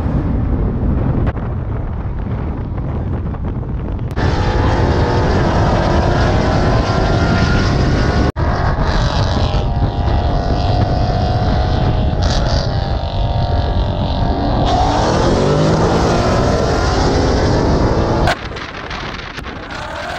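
Car engines revving and accelerating hard, their pitch climbing and dropping, with wind noise on the microphone. The sound breaks off and changes abruptly a few times.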